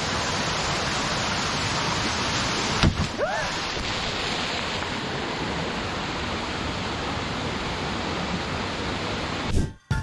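Steady rush of a fast-flowing rocky jungle stream cascading over boulders. About three seconds in there is a brief knock and a short rising tone.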